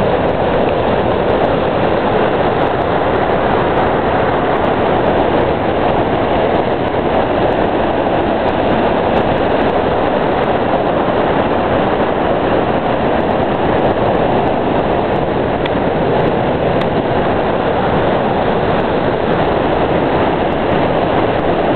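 Dawson Falls, a broad waterfall on the Murtle River, and its whitewater rapids rushing with a loud, steady noise that never lets up.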